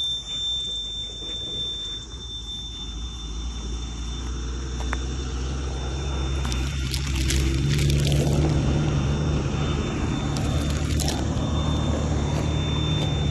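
A motor vehicle's engine running. It grows louder over the first several seconds and then holds steady, with a few brief crackles over it.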